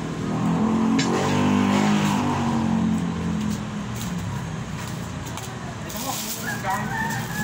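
A motor vehicle engine revving and passing by, loudest a second or two in, its pitch stepping up and down. Plastic wrapping rustles beneath it.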